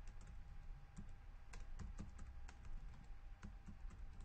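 Quiet, irregular light clicks, several a second, like keys being typed on a computer keyboard at the desk.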